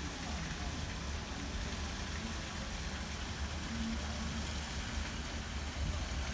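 Outdoor ambience dominated by wind buffeting the microphone: a steady low rumble with a constant hiss over it.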